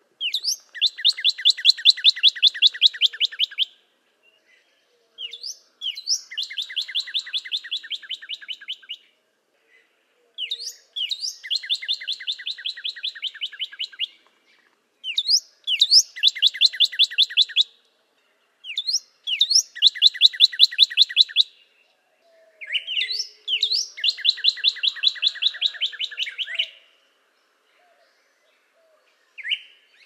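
Northern cardinal singing: six song phrases a second or two apart, each opening with a couple of sharp slurred whistles and running into a fast series of short repeated notes.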